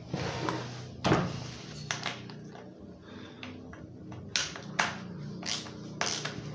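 Hand tools and metal parts being handled while working on a Husqvarna 137 chainsaw: scattered sharp clicks and light knocks, about eight in all, over a faint low hum.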